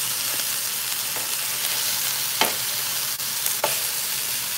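Chunks of beef sizzling steadily as they sear in a hot pan, with a few sharp clicks as metal tongs turn the pieces.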